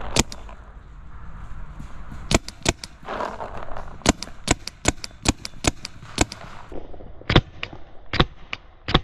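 Paintball markers firing: about a dozen sharp pops in irregular runs, at times two or three a second.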